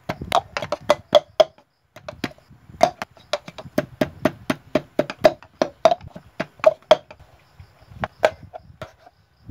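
Knife chopping on a plastic cutting board: irregular sharp knocks, two or three a second, each with a short hollow ring.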